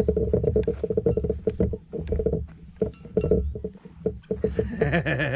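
A goat bleating once near the end, over a run of rapid, low, rustling pulses.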